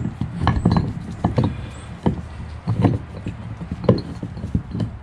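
A dozen or so irregular knocks and clicks as wooden battens and small clamps are handled and set against the wooden wave break and fiberglass hull.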